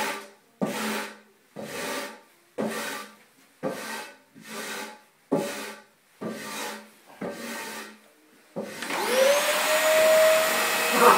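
A brush sweeping across a wooden floor in short, even strokes, about one a second. Near the end a vacuum cleaner is switched on, its motor whining up in pitch and settling into a steady run.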